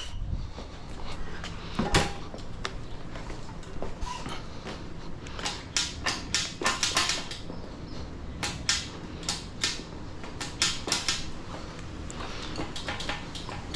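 Scattered sharp metal clicks and knocks of a shift lever and hand tools being handled while the lever is fitted onto a dirt bike's gear-shift shaft, busiest in the middle of the stretch.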